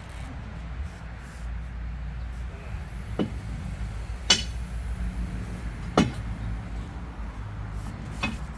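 Four sharp metallic knocks, as of metal tools striking or prying on the excavator's track gear, the loudest about four and six seconds in, over a steady low hum.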